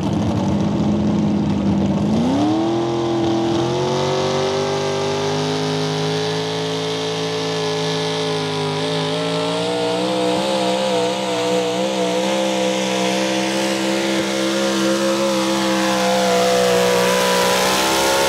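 Sportsman-class 4x4 pulling truck's engine revving up sharply about two seconds in and held at high revs under load through a pull, its pitch wavering slightly; near the end the revs start to drop as the throttle comes off.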